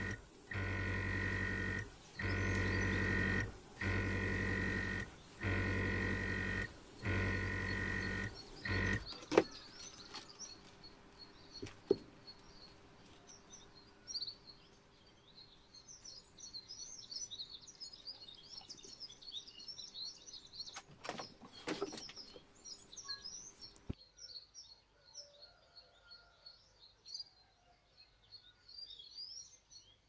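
A blow-dryer switched on and off in about six short blasts over the first nine seconds. After that, birds chirping, with a few sharp knocks.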